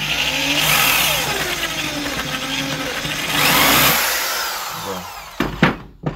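Electric drill running with a 9 mm bit, boring through the plastic of a foam sprayer's bottle, its motor pitch shifting up and down as it cuts. It winds down about five seconds in, followed by a few sharp knocks.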